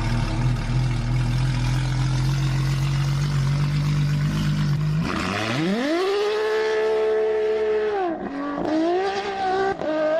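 Ferrari sports car engine idling with a low rumble, then revving up hard about halfway through and pulling away. Near the end the pitch drops and climbs again several times as it shifts quickly up through the gears.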